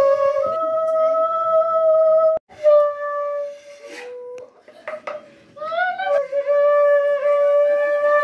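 Conch shell (shankha) blown in long, steady blasts with short breaks between, the last one sliding up into its note.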